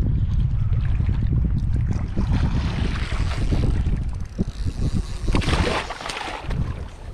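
Wind buffeting the microphone in a low, steady rumble, with sea water washing against a kayak's hull; the wash swells about two and a half seconds in and again, loudest, about five and a half seconds in.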